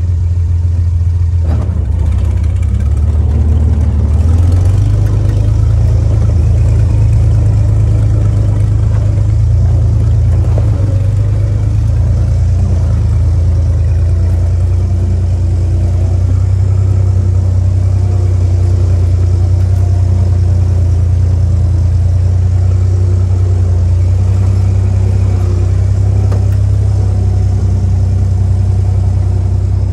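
1944 Willys jeep's four-cylinder Go-Devil flathead engine running under load as the jeep climbs a dirt trail. It pulls steadily, with the revs stepping up about four seconds in and then holding.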